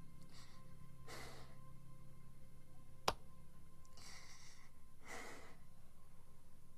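A woman weeping, with four heavy sighing breaths. A single sharp click about three seconds in.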